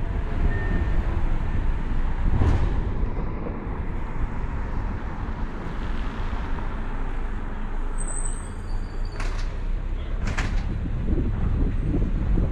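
Car driving through city traffic: a steady low road rumble, broken by a few short sharp noises about two and a half, nine and ten seconds in.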